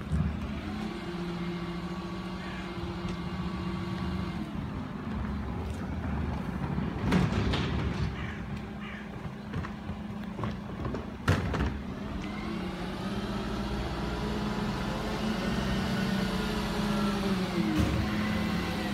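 Dennis refuse collection truck's diesel engine running steadily, its pitch rising and falling in long sweeps. Two sharp bangs of wheelie bins come partway through.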